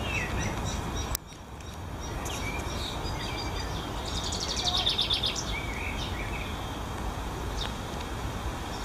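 Songbirds singing in the garden trees: scattered chirps and whistles, with a rapid trill about four to five seconds in, over a steady low background hum.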